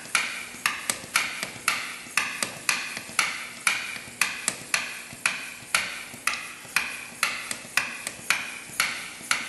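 Hand vacuum pump being worked steadily, a little over two strokes a second, each stroke a sharp click followed by a short hiss, drawing used engine oil up a tube from the dipstick tube into a sample bottle.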